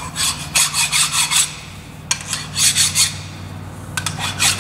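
Hand file deburring the corners of a machined cylinder-block casting: three runs of quick rasping strokes, about four or five a second, over a steady low hum.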